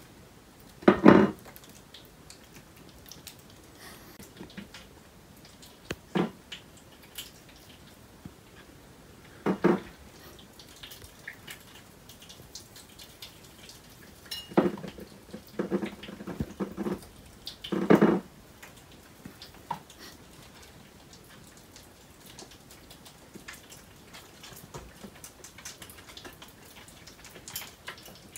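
Pine martens feeding from plates of nuts on a windowsill: a handful of short knocks and clatters of plates and paws on the sill, several close together past the middle, with faint clicking between.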